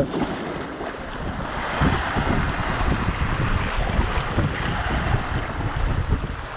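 Wind buffeting the microphone in low gusts, from about two seconds in, over the steady wash of sea waves breaking on rocks.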